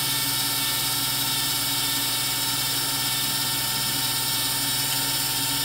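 Electric linear actuator's motor and gearbox running steadily on a 9-volt battery as it drives through its stroke, a constant hum with several steady tones.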